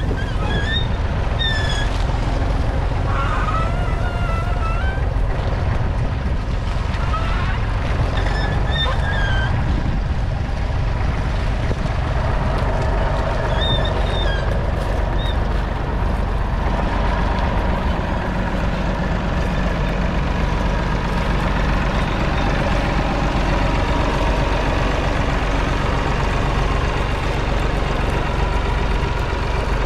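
Massey Ferguson 250's 2.5-litre three-cylinder diesel engine running steadily, with brief high chirps over the first half.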